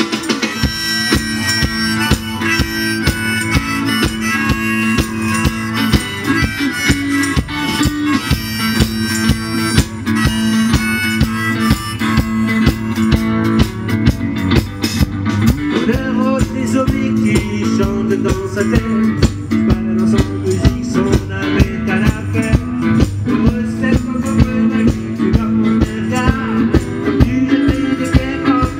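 Blues band playing live through outdoor PA speakers: electric guitars over a drum kit's steady beat.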